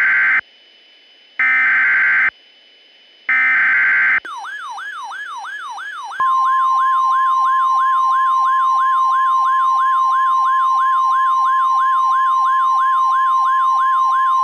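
Three screeching EAS SAME header data bursts of a NOAA Weather Radio alert, then a fast warbling siren-like sweep at about three sweeps a second. About six seconds in, the steady 1050 Hz weather-radio warning tone joins it, marking the start of an emergency alert.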